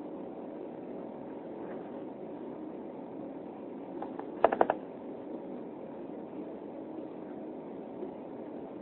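Steady cabin noise of an Embraer 195 airliner taxiing, a low rushing hum from its jet engines and the rolling airframe. About four and a half seconds in, a quick cluster of three or four sharp clicks.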